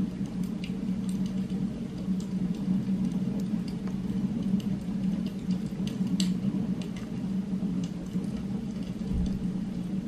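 Steady low ambient hum from a background soundscape track, with scattered small clicks and ticks, the sharpest about six seconds in.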